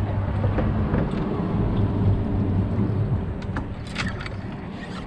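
A steady low engine hum that fades out about three seconds in, followed by a few sharp clicks.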